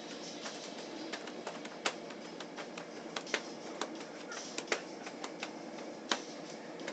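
Steady running noise inside a moving train carriage, with irregular sharp clicks and knocks scattered through it.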